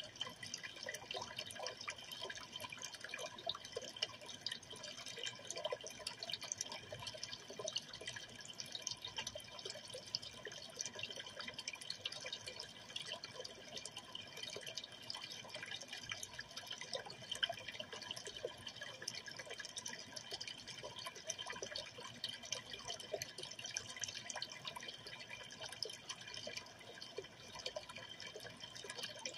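Aquarium water trickling and splashing steadily, a constant patter of many small drips.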